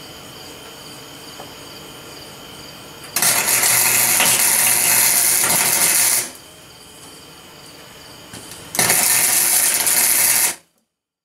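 Wire-feed welder arc crackling on car body sheet metal in two tack-weld bursts, the first about three seconds long and the second nearly two, with quieter steady noise between. The sound cuts off abruptly near the end.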